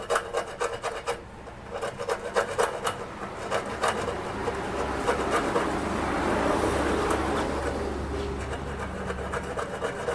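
A thin metal wire scraping and rubbing in the small holes of a motorcycle fuel pump to clear them. The holes are partly clogged with dust. The sound is a quick run of scratchy clicks, then a steadier rasping from about four seconds in until near the end.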